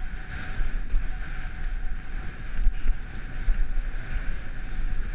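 Wind buffeting a GoPro's microphone as it moves at skiing speed, a steady low rumble, over the hiss of skis sliding on packed, tracked snow.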